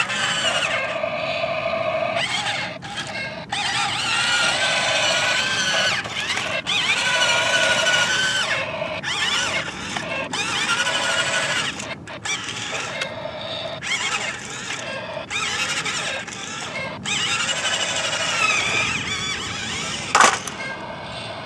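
Toy State CAT remote-control toy excavator's electric gear motors whining, the pitch wavering and stopping and starting as the arm is worked. A sharp click near the end.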